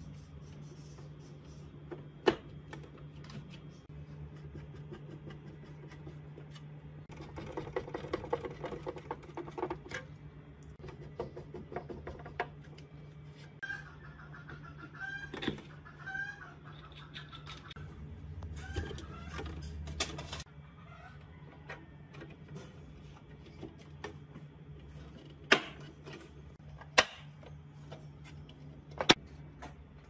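Plastic parts of an air conditioner's blower assembly being handled and fitted together: the fan housing and squirrel-cage blower wheel rustle and clack, with a sharp knock early on and three louder sharp knocks near the end. A chicken clucks a few times in the background around the middle, over a steady low hum.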